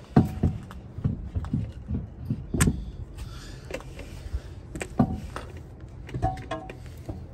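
Lug nuts being spun onto the wheel studs by hand, clinking and clicking in an irregular string of light metallic knocks, a couple of which ring briefly.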